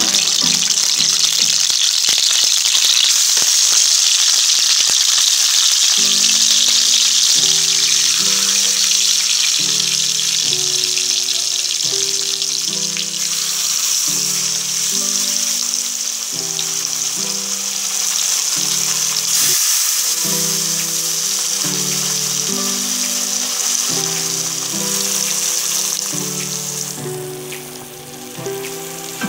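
Masala-coated fish pieces frying in hot oil in a karahi: a steady, loud sizzle, with background music playing over it.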